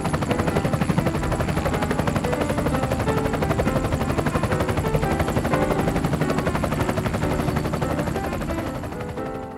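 Helicopter sound effect: rotor blades beating in a fast, even chop, tapering off near the end.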